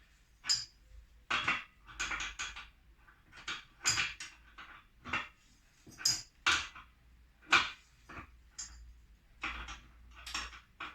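Metal parts and tools clinking and clanking as they are handled and set down on a bench: irregular sharp knocks, some with a brief metallic ring.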